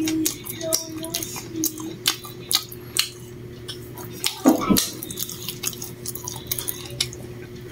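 Someone eating a meal: a run of sharp, irregular clicks and clinks, with a short low voiced sound about four and a half seconds in.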